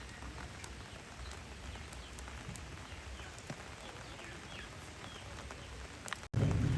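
Rain falling steadily, with many small drops ticking and a few faint chirping animal calls. About six seconds in, the sound cuts out for an instant and comes back as much louder rain with a deep rumble of thunder.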